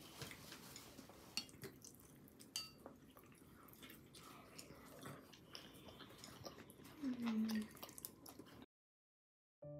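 Faint light clicks of chopsticks against ceramic bowls and plates, with a short 'mm' hum of enjoyment about seven seconds in. The sound cuts out to silence near the end.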